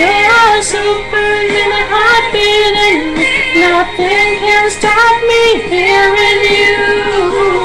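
A high voice singing a pop song without clear words, holding long notes and sliding up and down between them.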